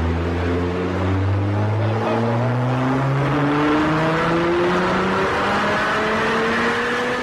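GT sports car engine accelerating, its pitch climbing slowly and steadily.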